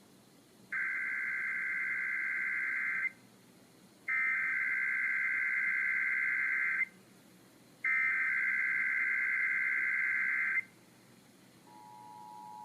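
Emergency Alert System SAME header: three bursts of buzzy digital data tones, each about two and a half seconds long and about a second apart, opening a Required Monthly Test alert. Near the end the steady two-tone EAS attention signal starts.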